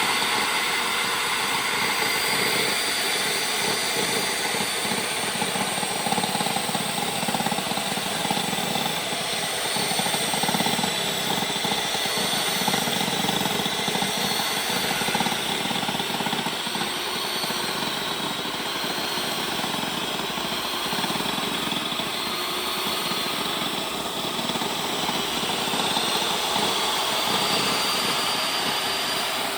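DeWalt table saw running and cutting PVC trim: a steady motor and blade noise with a high whine that wavers slightly in pitch as the board is fed through.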